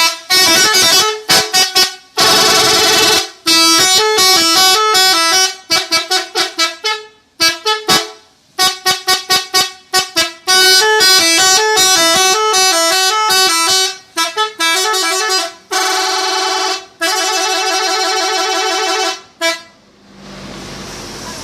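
Indonesian bus 'telolet' multi-tone air horn playing quick melodic tunes of stepping notes, some as runs of short toots and some held. It stops near the end, leaving a steady rushing noise.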